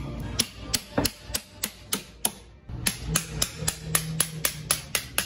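A toothed metal scraper with a wooden handle worked in quick strokes over a large tuna's skin, each stroke a sharp click, about three a second, with a short pause a little past the middle.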